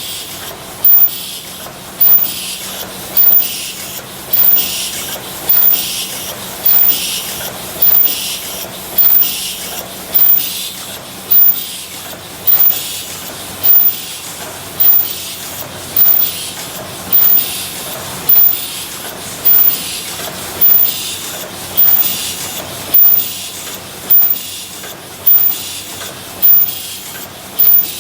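Paper cup forming machine running, with a sharp hissing clack about once every 1.2 seconds as each cycle completes, over a steady mechanical hum.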